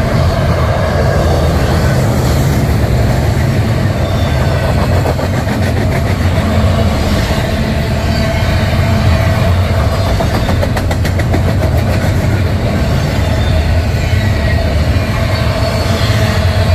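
Double-stack intermodal train's loaded well cars rolling past: a steady rumble of steel wheels on rail, with a run of wheel clicks about two-thirds of the way through.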